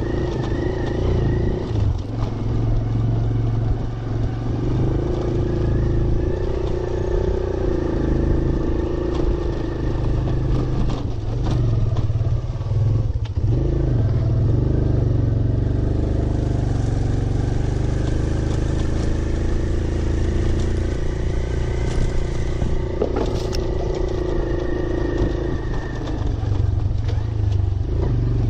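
Small motorcycle engine running while the bike is ridden over a rough dirt track, its revs rising and falling, with a few sharp knocks and rattles from bumps.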